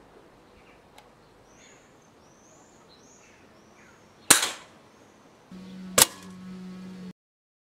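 Gamo Expomatic 2000 spring-piston break-barrel air rifle firing once about four seconds in, a sharp crack with a short decaying tail. Near the end a second sharp crack, the pellet striking the paper target in its metal pellet trap, over a low steady hum. Faint bird chirps come before the shot.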